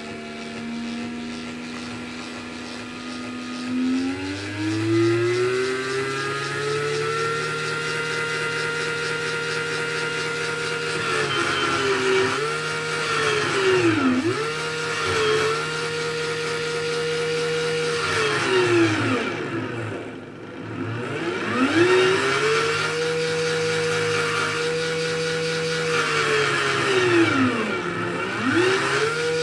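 Bare 18-volt DC motor from a cordless drill running on a bench power supply, with a steady whine. The whine rises in pitch as the motor spins up about four seconds in, holds, then dips and recovers several times as the speed sags and comes back. The motor is drawing about 2.9 amps with the 3-amp supply current-limiting.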